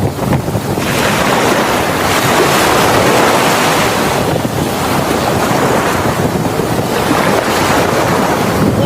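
Strong wind buffeting a phone microphone: a loud, steady rushing that swells and eases in gusts.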